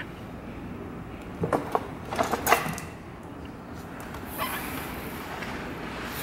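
Wooden loom parts knocking and clacking as gauze is woven: a quick run of sharp knocks about a second and a half in and again about two and a half seconds in, then a click and a soft hiss from about four seconds in.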